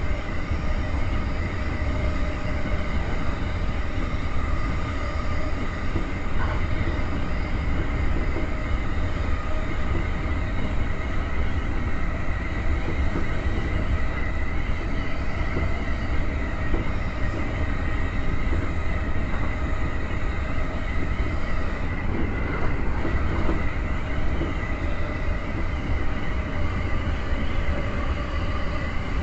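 JR East E231-series electric commuter train running along the line, heard from inside the front car behind the cab: a steady rumble of wheels on rail with a whine held on one pitch throughout.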